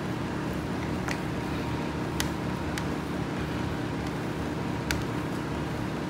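A steady low hum with about four faint, sharp clicks of a small plastic bottle against a plastic watercolor palette as water is put onto its mixing wells.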